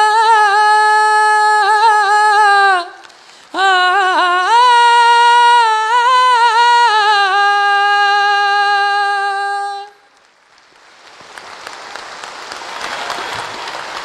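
A man's voice singing without accompaniment, holding two long, high notes with vibrato and a short breath between them, ending about ten seconds in. Audience applause then rises over the last few seconds.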